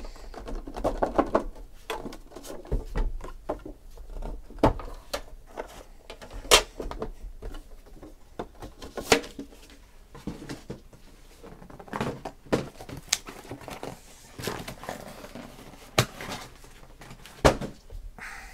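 Handling of a cardboard trading-card box and its cards: irregular sharp clicks and taps with short bursts of rustling as the box is opened and its contents are moved about.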